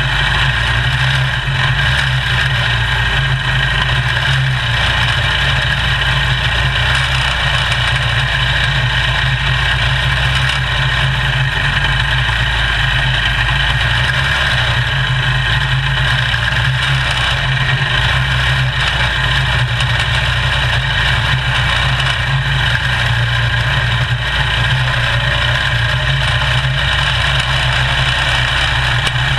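Small single-cylinder race car engine heard from on board, running at a steady drone with no big revs or cuts.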